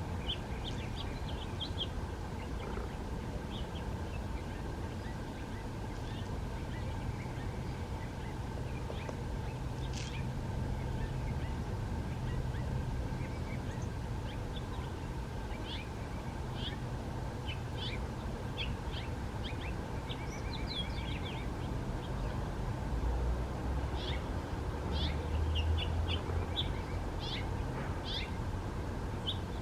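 Small birds chirping and trilling at intervals, with short high calls scattered throughout, over a steady background hiss and low rumble.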